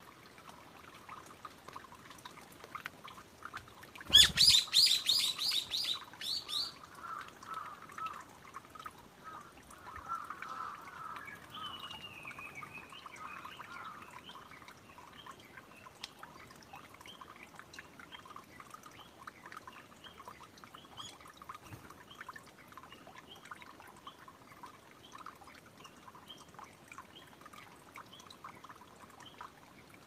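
A brown-eared bulbul calls loudly about four seconds in: a rapid run of about eight harsh notes lasting some two seconds. Fainter short chirps and a falling note follow, over a steady trickle of water.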